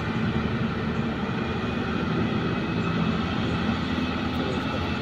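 Heavy diesel engine of a loaded 60-ton mining haul truck running steadily as it drives off, a low, even drone, with an excavator's engine running close by.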